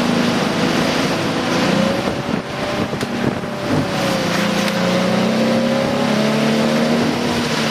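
Race car engines running on a circuit, their pitch rising and falling as they go by, over a steady hiss.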